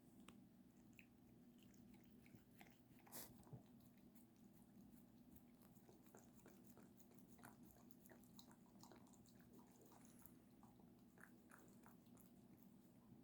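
Near silence: room tone with a low steady hum and faint scattered clicks, one a little louder about three seconds in.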